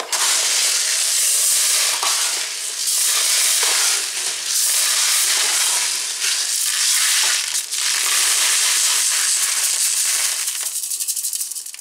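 Homemade lead shotgun shot being shaken through a round metal mesh sieve into a plastic tub: a continuous rattling hiss of pellets over the mesh that eases briefly a few times, then thins to scattered clicks near the end. The straining sorts out flakes and oblong, imperfect pellets.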